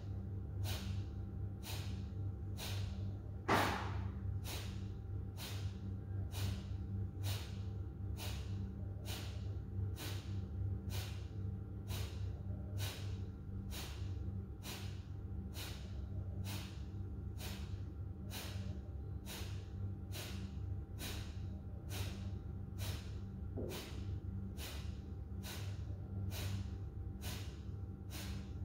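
Kapalabhati breathing: short, forceful exhalations puffed out through the nose, repeating evenly about once a second. One louder, longer breath sound comes about three and a half seconds in, and a steady low hum runs underneath.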